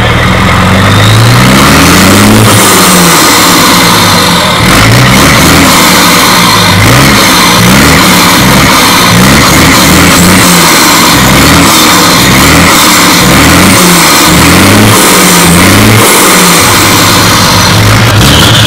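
Truck diesel engine revved hard over and over through its side exhaust pipe, very loud, each rev rising and dropping back about once a second. Near the end it settles to a steady idle.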